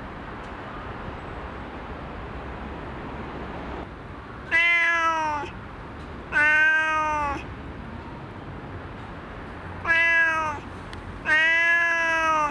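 Cat meowing four times, each call about a second long and arching up then down in pitch, after a few seconds of steady background noise.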